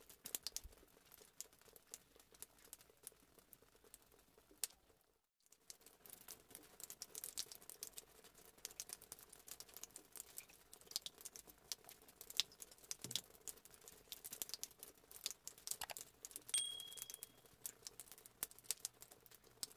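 Faint, irregular crackling and clicking, like paper being crinkled, with a short high beep about three-quarters of the way through.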